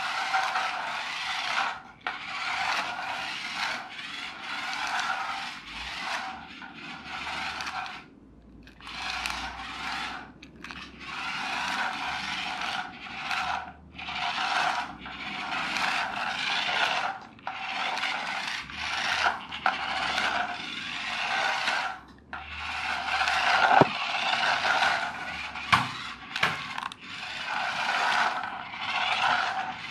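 Toy radio-controlled car with skid steering, a Mini-styled model, driving in short bursts across a laminate floor: its small electric motors and gears whirr and the wheels scrape, starting and stopping every second or two. A couple of sharp knocks come in the second half.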